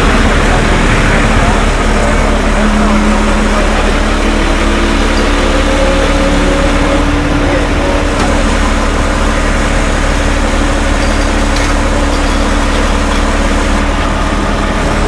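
Recovery truck's engine running steadily at idle, powering the lift as the crashed race car hangs above the flatbed.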